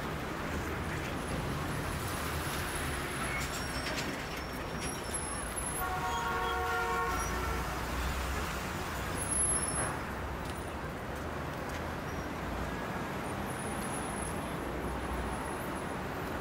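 City street traffic: a steady rumble of buses and cars passing. About six seconds in, a vehicle horn sounds once for about a second.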